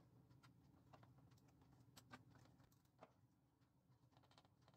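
Near silence with a few faint, short clicks: a soldering iron tip touching the solder joints of a circuit board while a capacitor is desoldered.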